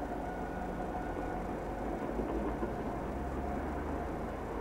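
Train rumbling past on the track, a steady, even low noise. A faint steady high tone fades out about a second in.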